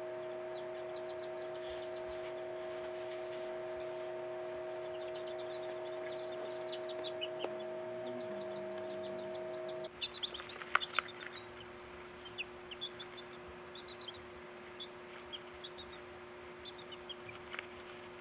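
Newly hatched Silkie chicks peeping in quick runs of short, high calls over a steady hum. About ten seconds in, the hum changes and the peeps become louder and more scattered.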